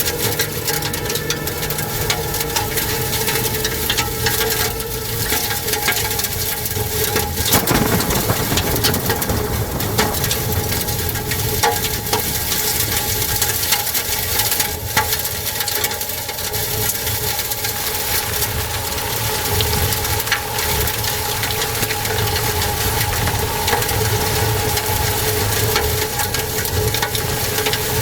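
Tornado wind blowing hard and steadily, with a constant whine running through it and many sharp ticks and knocks of debris striking.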